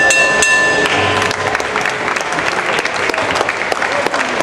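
Boxing ring bell struck a few times in quick succession and ringing on for about a second, signalling the end of the final round. Crowd clapping and cheering follows and continues.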